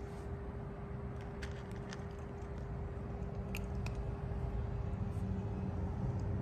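Kitten eating its breakfast, with a few soft chewing clicks, over a steady hum and a low rumble that grows louder near the end.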